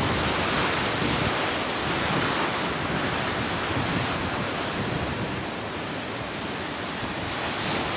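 Ocean surf washing against the shore: a steady hiss of waves that swells slowly, with wind blowing over it.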